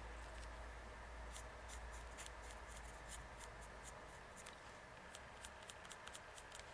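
Faint ticks and scratches of a white paint pen's tip dabbing and stroking on a gesso-primed teabag, coming faster in the last couple of seconds, over a low hum.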